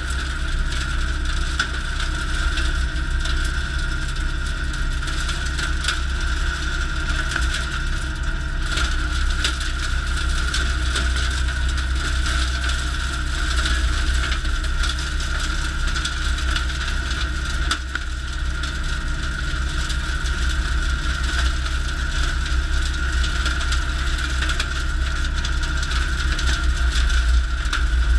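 Woods BB84X rotary cutter shredding dense brush, driven by a Valtra A95 tractor: the steady drone of the diesel engine and spinning blade, with constant crackling and snapping as branches are chopped.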